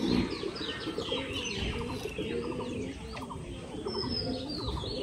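A dense chorus of many birds chirping and calling over one another, high quick notes above lower cooing calls. A short low bump comes right at the start.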